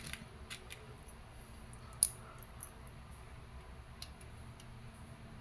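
Faint small clicks and taps of .177 lead pellets being pressed one by one into the 8-shot rotary end of an Umarex Beretta PX4 Storm's double-ended plastic magazine, with one sharper click about two seconds in.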